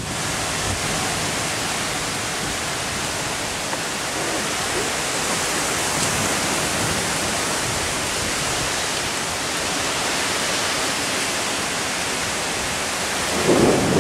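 Heavy rain pouring down in a thunderstorm, a steady, even hiss. Near the end a louder low rumble comes in over it.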